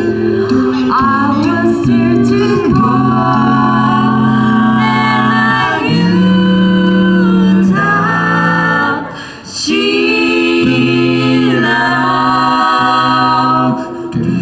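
A five-voice a cappella group of mixed male and female singers, amplified through microphones, singing in close harmony with held chords that change every second or two. The sound drops out briefly about two thirds of the way through before the chord comes back in.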